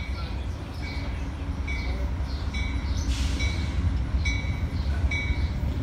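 Amtrak passenger train's diesel locomotive approaching: a steady deep rumble that slowly grows louder. A short high chirp-like tone repeats a little under once a second, and a brief hiss comes about three seconds in.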